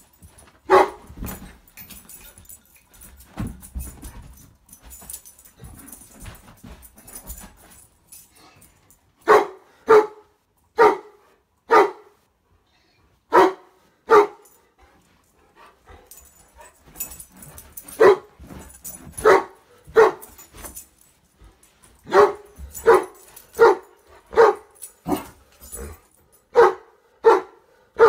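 Six-month-old Bernese Mountain Dog puppy barking in play. Short single barks come about a second apart: one early, a run of five in the middle, and a longer string near the end.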